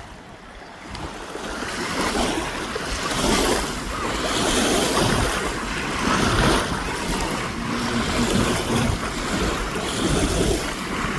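Wind buffeting the microphone over the rush of the sea, with surging waves and gusts about once a second.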